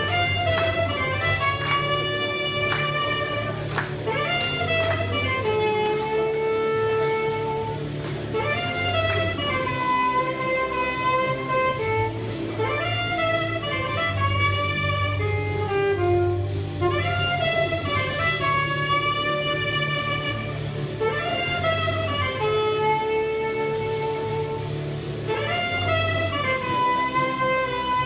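Instrumental music: a melody of held and sliding notes over a steady low bass line.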